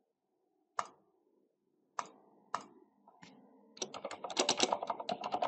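A few separate clicks, most likely a computer mouse clicking through dialog pages, then a quick run of typing on a computer keyboard starting about four seconds in.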